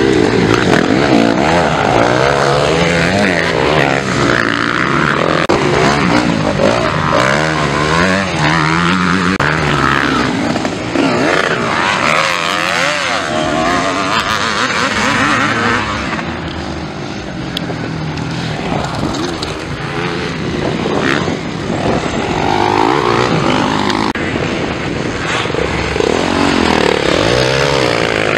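Several motocross bike engines revving hard as riders race by, the pitch rising and falling repeatedly as they open and close the throttle and shift gears.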